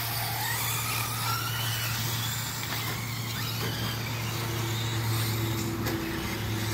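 Electric 1/10 RC buggies racing, their motors whining up and down in pitch, over a steady low hum.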